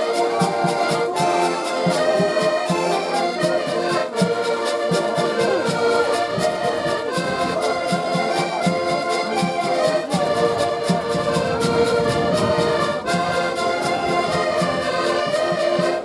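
An ensemble of diatonic button accordions playing a folk tune together in chords, with a drum beating a steady time.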